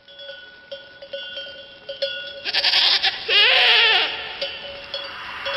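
A goat bleats once, loud and with a quavering pitch, about three seconds in, lasting under a second. Underneath run steady ringing bell-like tones with repeating pulses.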